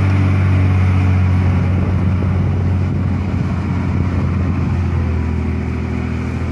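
Heavy diesel engines of a dump truck and a wheel loader running close by at a steady, unchanging speed, loud and low.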